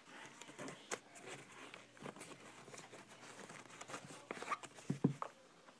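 Handling noise from a canvas sneaker being turned over and felt inside: rustling with scattered light clicks, and a couple of sharper knocks about five seconds in.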